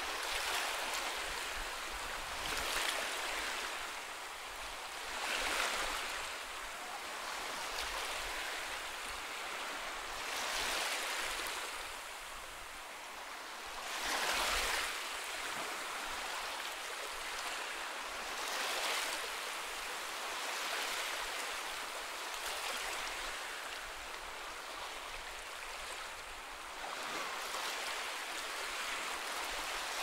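Small sea waves washing onto a rocky shore: a steady hiss of surf that swells every few seconds as each wave breaks and runs over the rocks.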